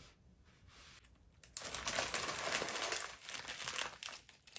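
Crinkling and rustling of craft supplies being rummaged through to fetch a ribbon. The crinkling starts about a second and a half in, lasts about two seconds, then tails off into a few soft rustles.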